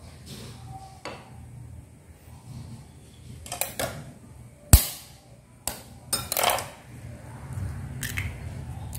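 A hen's egg cracked with one sharp knock against the rim of a ceramic bowl, then a short crackle as the shell is pulled apart to let the white drop in. Lighter clinks and handling noises come before and after.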